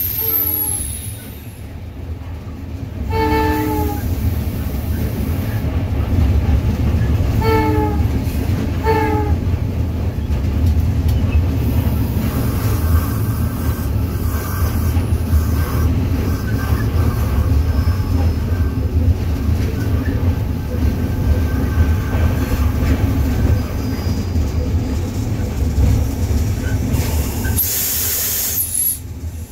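EMD GL18B locomotive heard from its cab: the EMD 8-645 two-stroke diesel and the rails give a steady rumble throughout. The horn sounds in short blasts over the first ten seconds, the longest about three seconds in and two quick ones around eight and nine seconds. Near the end there is a brief high squeal.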